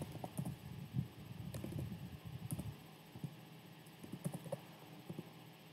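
Faint, scattered keystrokes on a computer keyboard as a word is typed letter by letter, over a low, faint rumble.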